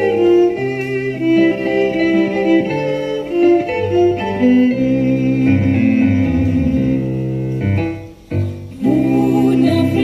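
A violin playing with piano accompaniment in an instrumental passage. There is a brief break about eight seconds in before the music resumes.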